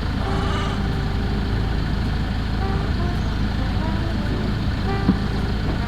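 Land Rover Defender driving: a steady, even rumble of engine and tyre noise.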